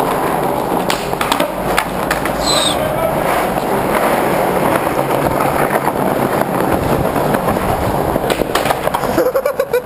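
Skateboard wheels rolling over a concrete car-park floor, a steady rough rumble, with a few sharp clacks about a second in and again near the end.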